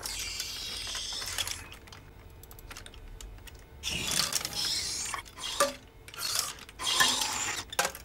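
Legged robot driven by pneumatic artificial muscles moving its legs: about four short bursts of hissing air from its air muscles and valves, with metallic clicks and clatter between them.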